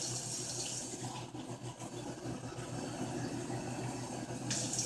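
Kitchen tap water running faintly while a cup is filled, the hiss stronger again near the end, over a low steady hum.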